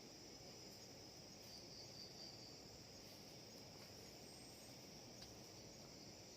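Faint, steady high-pitched chirring of insects, over a low background hiss.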